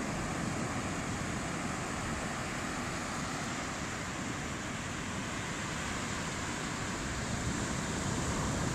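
Sea surf washing steadily onto a sandy beach, with wind rumbling on the microphone.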